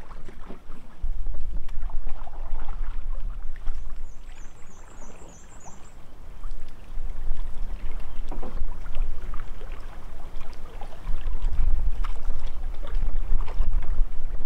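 Wind buffeting the microphone in gusts, stronger from about a second in and again near the end, over small waves lapping against a rocky lakeshore.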